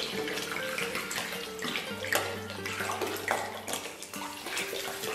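Cooking wine poured from a bottle in a thin stream into a wok of water, a steady trickling splash with small spatters.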